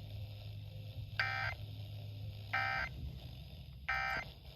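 Emergency Alert System end-of-message (EOM) data tones: three short buzzy bursts of digital squawk about 1.3 seconds apart, closing the severe thunderstorm warning broadcast. A low steady hum runs underneath.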